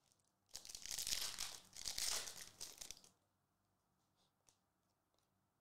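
Trading cards being handled and shuffled: a crinkling, rustling sound that starts about half a second in and lasts roughly two and a half seconds, followed by a couple of faint ticks.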